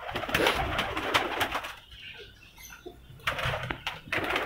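A flock of white domestic pigeons in a loft, wings flapping and clattering in the first second and a half and again near the end, with a quieter lull between, and cooing.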